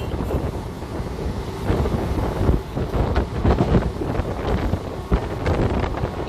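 Moving passenger train: wind buffeting the microphone over the steady low rumble of the running carriage.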